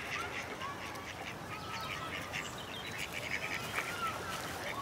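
Mallard ducks quacking faintly on a pond, scattered short calls over quiet outdoor ambience.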